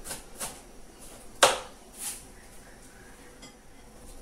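Kitchen knife chopping onion on a plastic cutting board: a few irregular knocks of the blade on the board, the loudest about a second and a half in, then lighter ones.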